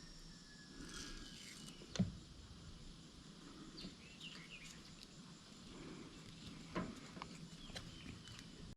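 Quiet background with faint bird chirps and two soft knocks, one about two seconds in and one near seven seconds, from the wiring being handled and wrapped with tape.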